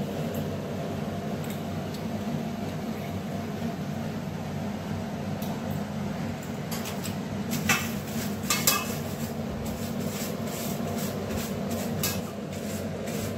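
Stainless steel plate clinking and tapping as a pumpkin leaf is laid on it and handled, with a few sharper clinks about eight seconds in, over a steady low hum.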